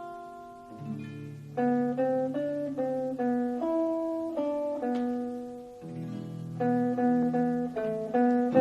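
Acoustic guitar playing a slow instrumental introduction: a melody of single plucked notes over held bass notes.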